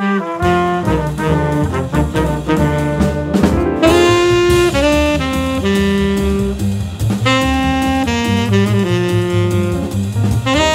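A jazz quintet of trumpet, tenor saxophone, keyboard, double bass and drums playing an up-tempo tune, with a horn carrying the melody over walking bass and drums. The tenor saxophone is the most prominent instrument.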